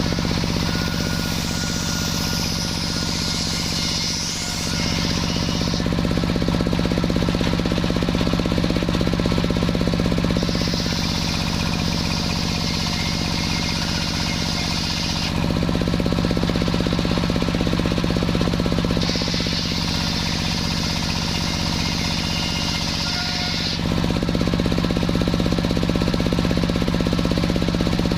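Sawmill saw running steadily under its engine drone, cutting through a waru log three times, each cut a hissing rasp of about five seconds over the steady drone.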